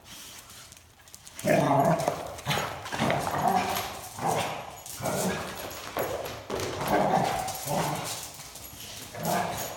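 A dog barking repeatedly, a string of short barks starting about a second and a half in, coming roughly one or two a second.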